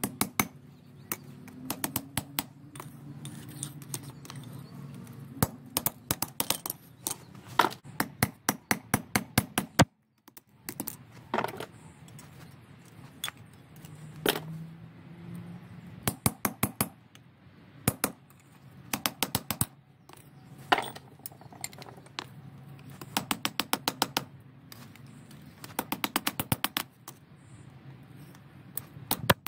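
Hand hammer striking steel on an anvil in quick runs of light blows with short pauses between them, some blows leaving a brief metallic ring: a steel ring being punched and hammered flat.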